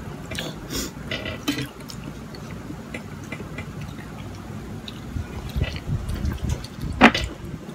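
Close-up wet eating sounds of a child eating with his hand: mouth smacks and slurps, with a run of short wet clicks in the first second or two and a sharp louder click near the end.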